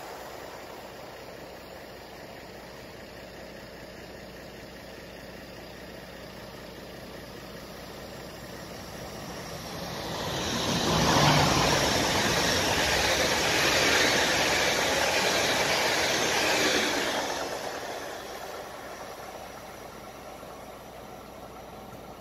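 A DB Regio class 440 electric multiple unit passing close at speed: a rush of wheels on rail and air builds about nine seconds in, holds for some six seconds, then fades away. Before it only a faint steady rumble.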